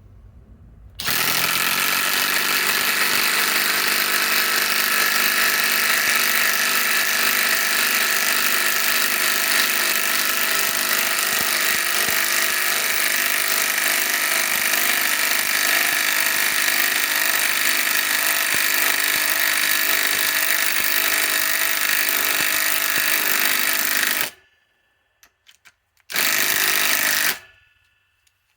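Cordless impact driver hammering steadily for over twenty seconds while driving a 6-inch lag screw into pre-drilled wood. After a short pause it gives one brief second burst.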